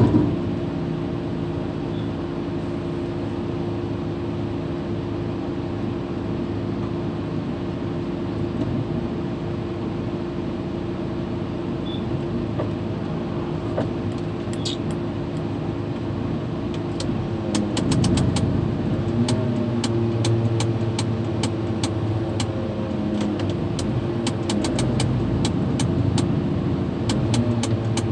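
Terex mobile crane's diesel engine running steadily, revving up about two-thirds of the way through, with runs of sharp rapid clicks over the last part.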